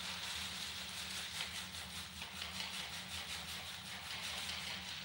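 Large plastic sheet of window tint film crinkling as it is lifted and handled, the crackles coming in quick irregular bunches over a steady hiss and a low hum.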